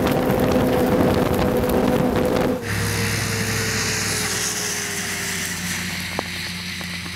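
Snowmobile engine running at high speed, loud and rushing. About two and a half seconds in, the sound cuts abruptly to a quieter engine note that slowly falls in pitch as the snowmobile moves away.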